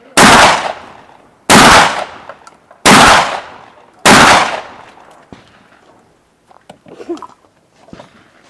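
Four shotgun slug shots from a Benelli M2 semi-automatic shotgun, about 1.3 s apart, each ringing off in a long echo. After about five seconds the shots stop and only a few faint knocks and clatters follow.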